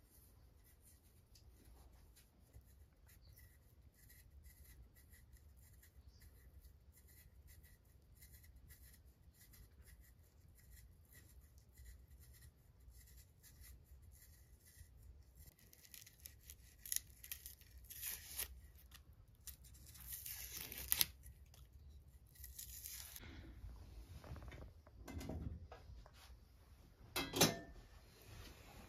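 A knife peeling raw potatoes: a long run of small scraping cuts that grow louder and denser about halfway through. Near the end come a few louder knocks and clatter.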